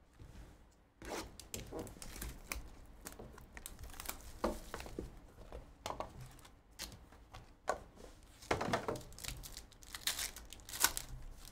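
Trading-card packs being handled and their wrappers torn open and crinkled, with a cardboard hobby box being opened and handled: a string of irregular short rips and crackles.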